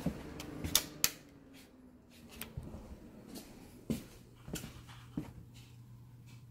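A light switch clicked twice in quick succession about a second in as the room lights go off, then a few faint clicks and taps from handling a small fishing lure.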